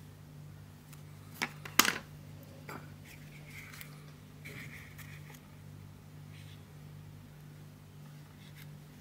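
Light plastic clacks and knocks as gloved hands handle small plastic sand-sculpting tools and a plastic castle mould: two sharp clacks close together about two seconds in, a softer one shortly after, then quiet rubbing of cotton gloves on plastic. A steady low hum runs underneath.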